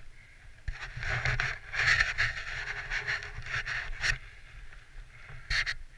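Fat-tire bike tyres crunching over compact snow at sub-zero temperatures. The crunching grows loud about a second in, eases after about four seconds, and comes back in a short burst near the end.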